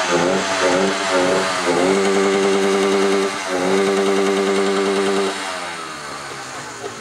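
A small engine running at a steady pitch, wavering at first and dipping briefly twice, then dropping away and fading about five seconds in.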